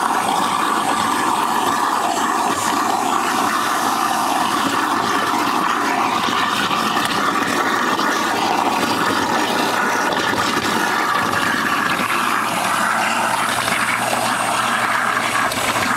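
A garbage disposal unit used as an apple grinder, running steadily and grinding whole apples into pulp. It makes a continuous rushing noise over a low motor hum.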